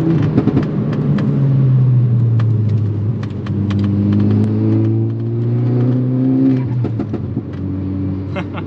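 Modified MK6 Golf R's turbocharged 2.0-litre four-cylinder with an aftermarket turbo-back exhaust, driven hard: the engine note eases down at first, climbs steadily for about three seconds past the middle, then falls away near the end. Many sharp crackles come through over it.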